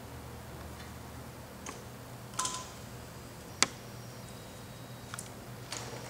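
Scattered sharp metal clicks and clinks, about six, from the spray gun and its adjustable clamp-on gun holder on an airless line striper being handled and set in position; the loudest click comes a little past halfway. A faint steady low hum runs underneath.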